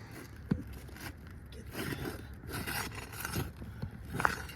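Scraping and rustling of hand work prying at a nailed-in part, with a sharp knock about half a second in and another near the end.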